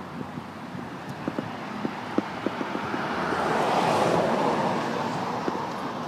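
A vehicle passing by on the road: its noise swells to a peak about four seconds in and then fades, with a few light clicks before it.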